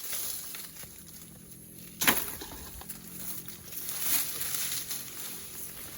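Outdoor background with one sharp knock about two seconds in and a few fainter ticks and rustles later.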